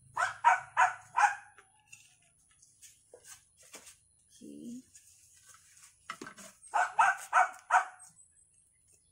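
A dog barking in two quick runs of four barks, one at the start and another about seven seconds in.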